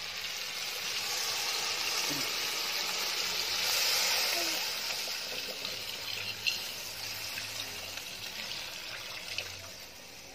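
Water poured from a steel pot into a hot steel kadai of frying fish and mushrooms, a gushing splash with hissing as it hits the hot pan, loudest a few seconds in and then slowly dying down.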